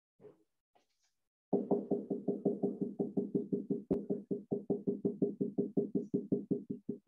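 A marker hatching shading on a whiteboard: quick, even taps and strokes of the tip against the board, about seven a second, starting about a second and a half in.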